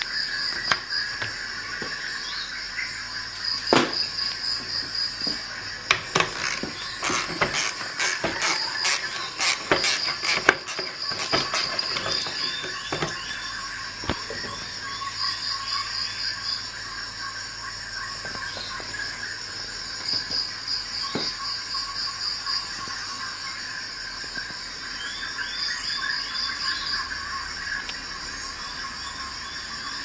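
Insects chirping in repeated pulsing trills with short falling chirps in between. A run of sharp clicks and cracks comes in about six seconds in and lasts some five seconds.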